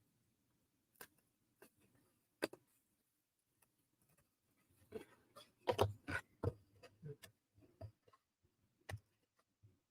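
Small wooden puzzle pieces being handled and fitted together: faint scattered clicks and taps, with a quick cluster of them about six seconds in.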